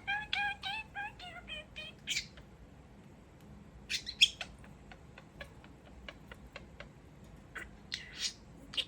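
Pet budgerigar vocalizing: a quick run of short, even beeps, about five a second, in the first two seconds, then scattered sharp, high chirps with small clicks between them.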